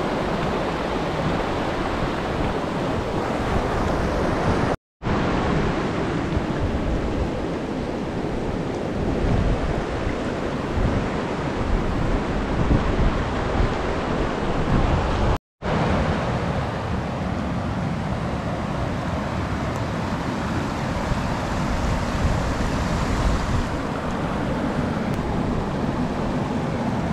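Mountain river rushing over rocks: a steady roar of whitewater, with a low rumble of wind on the microphone. The sound cuts out abruptly twice, about five and fifteen seconds in.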